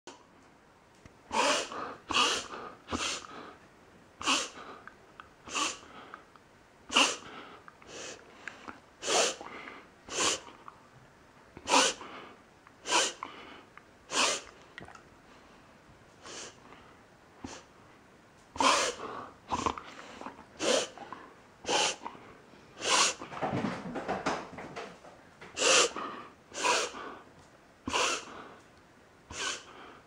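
A dog snorting through its nose in a long run of short, sharp sniffs, about one a second, with a brief lull midway. This is the strange snorting attack its owner likens to reverse sneezing, though it comes on at rest and swallowing does not stop it.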